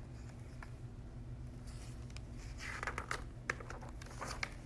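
Paper rustling and soft clicks of a picture book's page being handled and turned, through the second half, over a low steady room hum.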